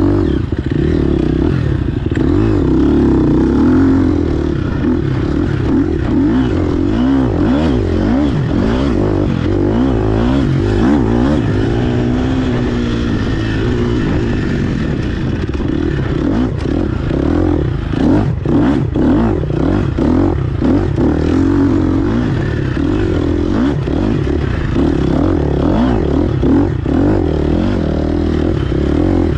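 GasGas EX 250F four-stroke single-cylinder dirt bike engine being ridden hard, its revs rising and falling constantly, with knocks and rattles from the bike over rough ground, most of them a little past the middle.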